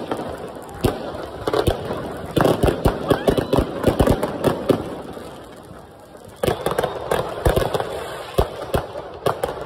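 Fireworks exploding overhead: a sharp bang at the start, then rapid runs of bangs and crackles, easing off briefly past the middle before another dense run.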